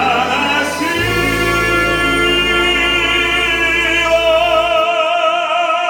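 Male singer holding a long sung note that swells into strong vibrato, backed by a symphony orchestra with strings and a sustained low bass; the bass drops out about five seconds in.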